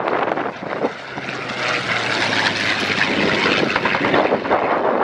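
A WW2-era propeller-driven warbird flying past, its piston engine and propeller drone growing louder through the second half.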